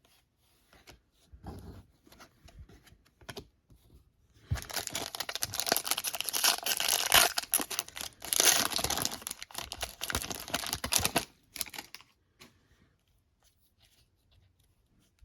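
Plastic cellophane wrapper of a trading-card cello pack being torn open and crinkled: a dense crackling run of about seven seconds starting a few seconds in, with scattered light clicks and rustles of handling before and after.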